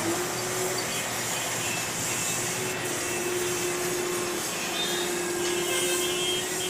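Amkodor skid-steer loader's diesel engine running steadily under load, with a steady whine over the engine noise, while it works its bucket in rubble.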